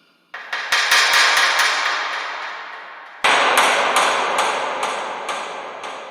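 A sound-design patch from the EERIE 2 Kontakt horror sample library, played twice: each note is a run of sharp metallic ticks, about three to five a second, over a hiss that fades out. The second note starts about three seconds in.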